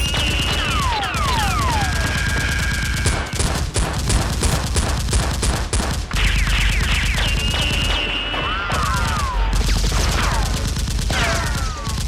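Sustained rapid gunfire sound effects, many shots in quick succession with a heavy low boom, overlaid by several falling whistles like bullets whizzing past.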